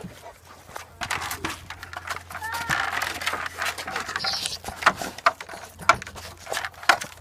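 A dog sniffing right at the phone's microphone and nudging it with its nose, among clicks and knocks as the phone rubs against wooden fence boards. A brief pitched animal call sounds about two and a half seconds in.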